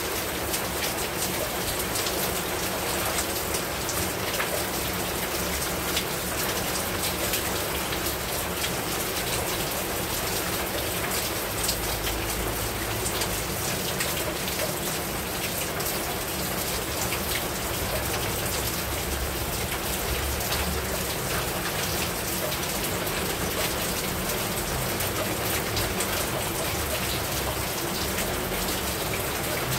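Heavy rain falling steadily: an even hiss with many sharp individual drop hits through it.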